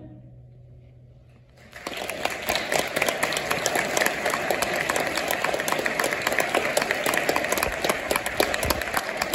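The last of a choir's held chord fades away. About two seconds in, the audience starts applauding, and the applause carries on steadily.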